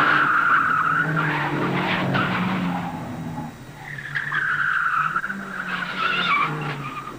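Car tyres squealing: a screech at the start and a longer, wavering one from about four seconds in, over the low drone of car engines.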